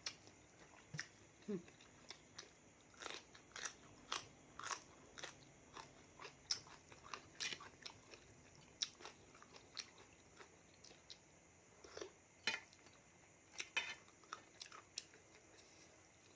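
A person chewing mouthfuls of raw seafood salad (salmon, shrimp and squid), with irregular, sharp crunches and mouth clicks a few times a second.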